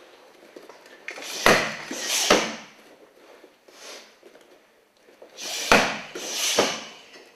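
Strikes landing on handheld foam kicking mitts: two pairs of sharp, loud smacks about a second apart, the second pair a few seconds after the first, each with a short room echo.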